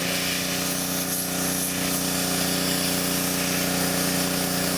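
Pressure washer running steadily, with a constant hum, while its water jet hisses against the back of a flip phone around the battery.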